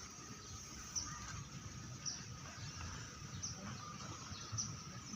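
Short, high chirps from a bird, repeated about once a second over faint outdoor background noise.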